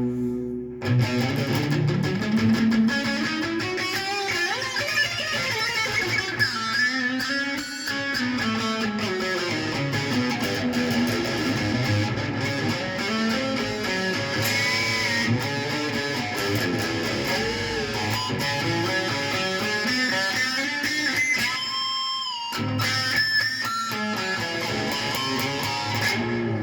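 Guitar, most likely electric, played as a lead line with notes bent and slid up and down. There is a brief break about 22 seconds in, followed by high ringing harmonics.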